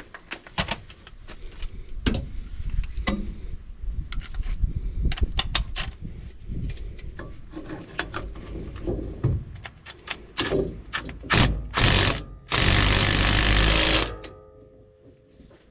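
Metal tools clinking and knocking on a differential, then short bursts from an air impact wrench tightening the pinion nut to crush the pinion bearings for preload. The last burst, about a second and a half long near the end, is the loudest.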